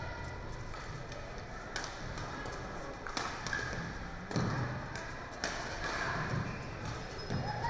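Badminton rackets striking a shuttlecock during a fast doubles rally: a series of sharp hits about one to one and a half seconds apart, over the steady murmur of a sports hall.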